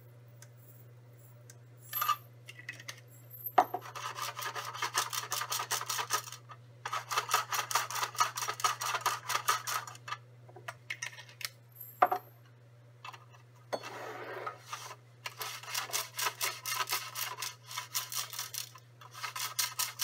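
Glass plating beads rattling and rolling inside Petri dishes as the agar plates are shaken back and forth to spread the cells. It comes in several bursts of a few seconds each, with short pauses between. A few single clicks come before the first burst and in one pause.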